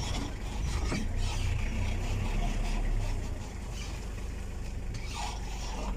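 Wind buffeting the phone's microphone, a steady low rumble outdoors by open water.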